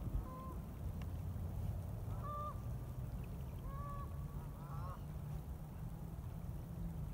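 Geese honking, about four short calls spread over several seconds, over a steady low rumble.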